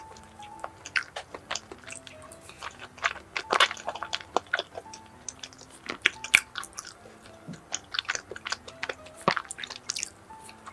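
Close-miked chewing of a sweet potato glutinous rice cake (chapssal-tteok): irregular wet mouth clicks and bites, over soft background music.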